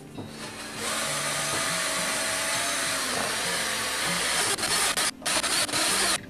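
Power drill spinning a fan-blade mixing paddle in a cup of liquid silicone rubber, mixing the base. It starts about a second in and runs steadily, cuts out briefly twice near the end, then stops.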